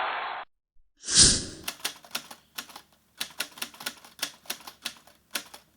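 A short loud whoosh about a second in, followed by a run of sharp, irregular clicks at roughly three a second.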